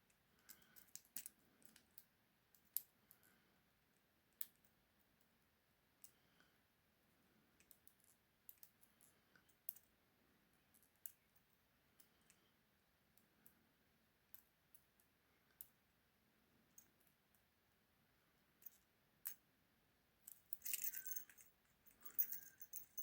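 Faint, scattered clicks of a miniature half-diamond lock pick and tension wrench working the pins of a small 20 mm padlock, with a denser clatter of clicks near the end.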